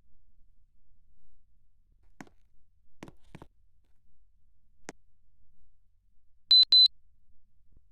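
Two short, high-pitched electronic beeps in quick succession, like an air conditioner's control unit acknowledging a button press, after a few faint clicks.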